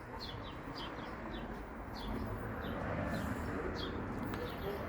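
Small songbird chirping outdoors: a series of short, high, falling chirps, some in quick pairs, repeated every second or so over a steady low background noise.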